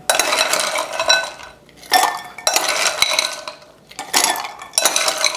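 Ice cubes spooned from a glass bowl into a stemmed glass goblet, clattering and clinking against the metal spoon and the glass in three bursts, with the glass ringing briefly.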